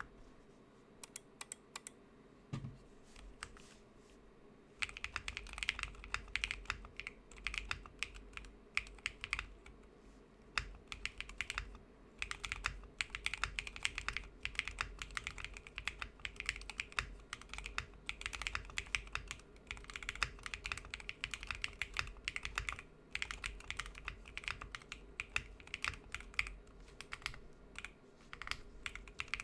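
Typing on a gasket-mounted Neo80 mechanical keyboard with Akko Cream Yellow Pro linear switches, XDA-profile PBT keycaps, an FR4 plate and no foam. A few scattered keystrokes, then steady fast typing from about five seconds in.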